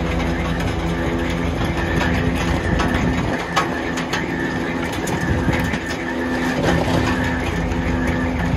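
A bucket-elevator sand loader running: its drive hums steadily while the chain of steel buckets and the conveyor clatter, with irregular clanks and sand pouring.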